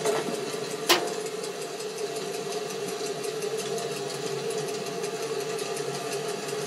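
Large-scale model trains running on a layout: a steady motor whir and wheel rumble with a fast, regular light ticking, and a sharp click about a second in.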